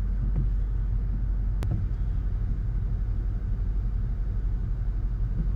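A vehicle's engine running, heard from inside the cabin as a steady low rumble.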